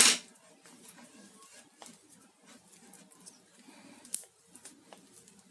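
Hands working a white CCTV cable with a small orange cable-stripping tool: a short, sharp scrape right at the start, then light clicks and rustles of plastic handling, and a sharp click about four seconds in.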